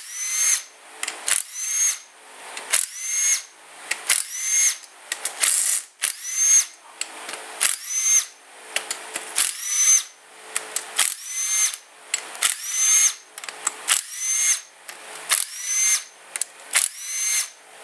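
Cordless drill-driver with a socket extension spinning crankcase bolts out of an aluminium engine case. It runs in short bursts about once a second, many ending in a rising whine as the motor spins up.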